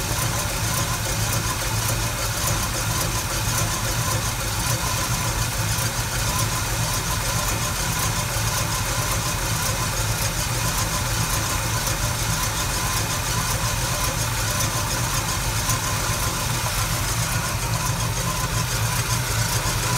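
A 1974 Chevrolet C10's small-block V8 idling steadily just after starting, running on a newly replaced fuel pump.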